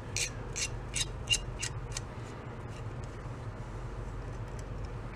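A long screwdriver turning a screw in an old Briggs & Stratton carburetor's cast body: short, high scraping strokes about three a second for the first two seconds, then only faint ticks.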